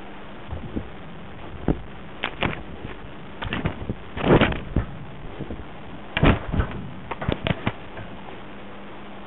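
Handling noise of a micro camera in a Nova Scotia duck tolling retriever's mouth: irregular knocks, scrapes and rustles as the dog bites and carries it, with fur rubbing over it. The loudest scrape comes about four and a half seconds in. Under it all runs the camera's steady hiss and low hum.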